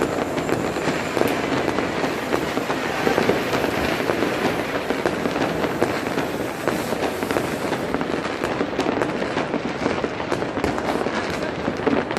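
Continuous fireworks and firecrackers going off all over a city: a dense, unbroken crackle of countless overlapping bangs and pops.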